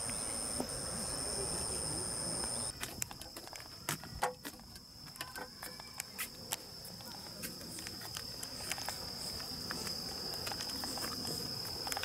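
Insects trilling in a field: one steady high-pitched trill runs throughout, with a second, higher trill over it for the first few seconds until the sound changes abruptly. After that change, scattered short clicks sound over the trill.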